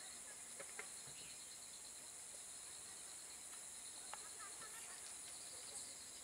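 Steady, high-pitched chorus of insects, shrilling with a fine rapid pulse, with a few faint ticks and short distant calls over it.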